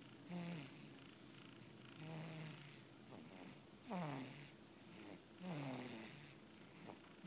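A baby snoring faintly after a feed: about four breaths, one every second and a half to two seconds, each a short sound that falls in pitch.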